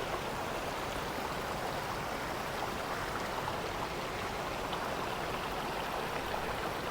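A river rushing steadily: an even, unbroken wash of flowing water.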